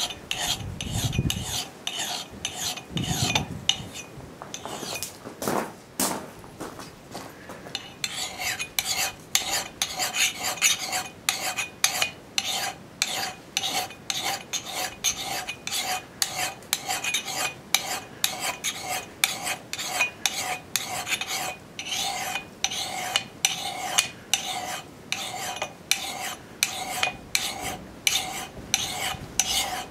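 Fine side of a hand file stroking across the steel bit of a Council Tool boys axe held in a vise, scraping away the factory machining marks to sharpen it. A few slow strokes and knocks at first, then steady even strokes about two a second from about eight seconds in, each with a faint metallic ring.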